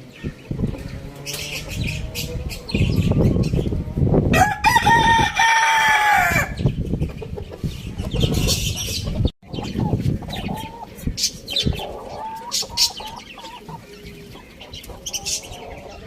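A rooster crows once, for about two seconds, about four and a half seconds in, with shorter hen clucks and calls around it, more of them later on. A low rumbling noise is under the first few seconds, and the sound cuts out for an instant about nine seconds in.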